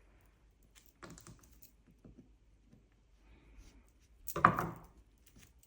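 Small scattered taps and clicks of handling on a work surface as modelling paste is worked on cling film, with one louder knock about four and a half seconds in.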